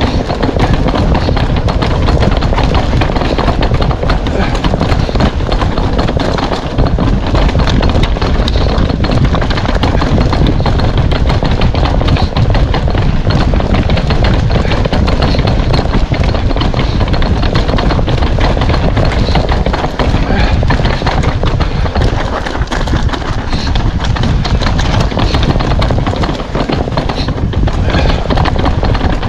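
Loud wind buffeting the microphone over a constant rattle and clatter of a mountain bike riding rough, rocky trail, with many small knocks throughout.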